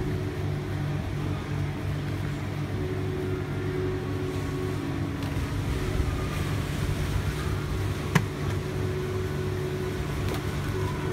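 A motor running with a steady hum, with a single sharp click about eight seconds in.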